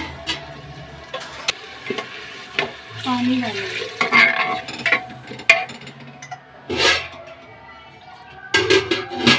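Metal spoon stirring and scraping rice and cumin in an aluminium pressure cooker, with sharp clinks against the pot. Water splashes in around three seconds in and is stirred through.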